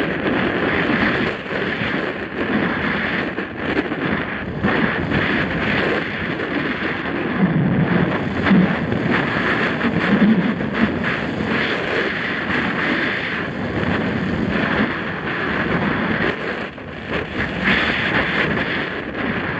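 Wind rushing over a helmet-mounted camera's microphone as a mountain bike descends a dirt trail at speed, with tyres rolling on dirt and frequent short knocks and clatters from the bike over bumps.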